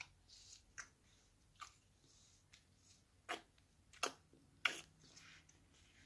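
Toddler sucking and chewing on a juicy watermelon wedge: about six sharp wet mouth clicks and smacks, the loudest three to five seconds in, with soft slurping between them.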